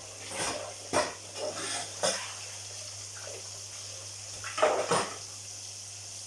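Dishes and utensils knocking and clattering in a sink during washing-up, with a few sharp clunks over a steady sizzle of frying.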